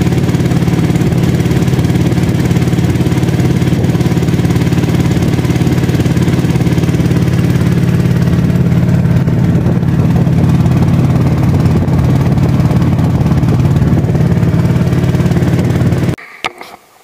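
Engine of a motorized wooden outrigger boat running steadily while the boat travels, then cutting off abruptly near the end.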